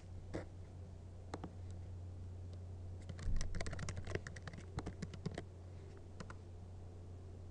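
Typing on a computer keyboard: a few separate key presses, then a quick run of keystrokes about three seconds in lasting a couple of seconds, and two more near the end, over a low steady hum.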